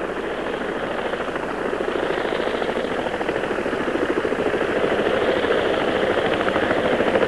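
Helicopter sound effect played over the stage sound system: a rapid, even rotor chop mixed with engine noise, growing gradually louder.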